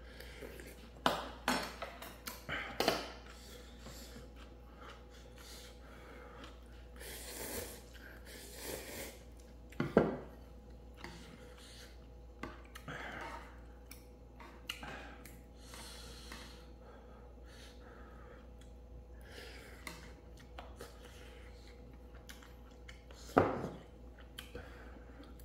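Eating utensils clinking and knocking against a ramen pot or bowl: irregular clicks, a cluster of them at the start and louder single knocks about ten seconds in and near the end.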